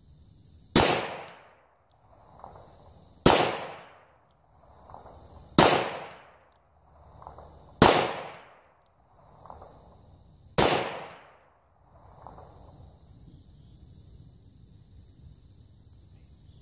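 A .357 Magnum revolver firing five shots of a handload with 4.7 grains of Clay Dot shotgun powder under a 126-grain Lyman cast cone-nose bullet, one sharp report every two to three seconds. Each shot is followed by a fainter thump about a second and a half later.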